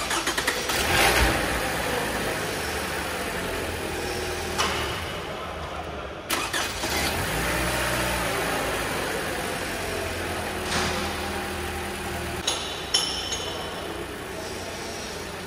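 Toyota 2AR-FE 2.5-litre four-cylinder engine cranking briefly and starting, flaring up about a second in, then settling to a steady idle after the VVT-i filter replacement. A few sharp clicks and knocks are heard over it, two close together near the end.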